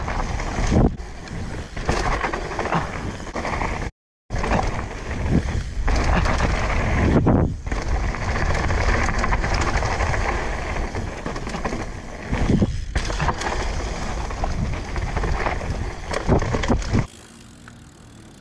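Mountain bike on a dirt trail: a steady rush of wind on the microphone over tyre and frame noise. The sound cuts out briefly about four seconds in. Near the end it drops suddenly to a much quieter background.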